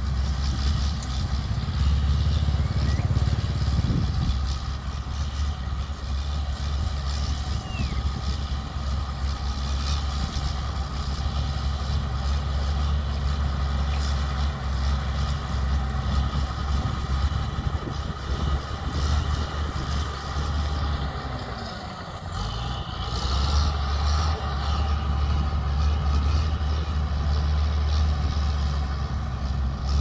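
Shantui crawler bulldozer's diesel engine running steadily under load as the dozer pushes rock and soil fill with its blade. About two-thirds of the way through, the engine note sinks and quietens briefly, then comes back up.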